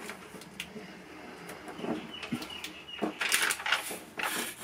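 Paper backing crackling and rustling as it is peeled off a self-adhesive sound-deadening mat pressed onto a car's roof panel, faint at first and growing louder about three seconds in.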